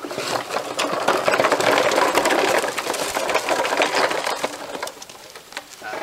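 Canola oil glugging in quick irregular gulps as it is poured from a plastic bottle into a car engine's oil filler, tapering off about five seconds in.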